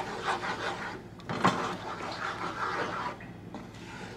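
Plastic spatula stirring and scraping runny scrambled egg with nopales in a nonstick frying pan, in irregular strokes, with one sharper knock against the pan about a second and a half in.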